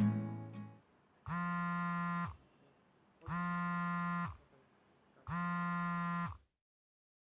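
Smartphone buzzing for an incoming call: three one-second buzzes about two seconds apart, each dropping slightly in pitch as it stops. Guitar music fades out in the first second.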